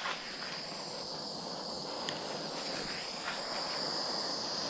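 Handheld gas torch hissing steadily as its flame is passed over freshly poured epoxy to pop surface bubbles, with two faint clicks about two and three seconds in.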